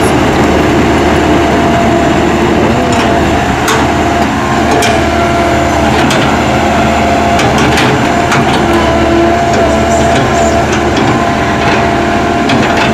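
Excavator at work: its diesel engine runs steadily under load with a steady whine, with a few short rising and falling pitch sweeps and several sharp metallic clanks scattered through.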